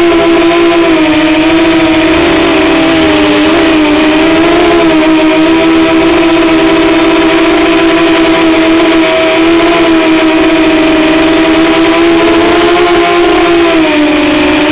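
Racing quadcopter's brushless motors and propellers, heard close up from the action camera mounted on the frame: a loud, steady buzzing whine whose pitch wavers up and down with throttle, dipping briefly near the end.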